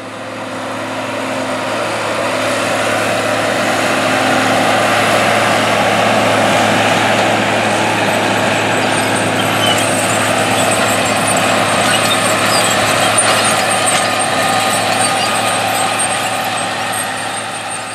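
John Deere 4840 tractor's diesel engine running steadily under load while pulling a 16-row planter. It grows louder over the first few seconds and fades near the end.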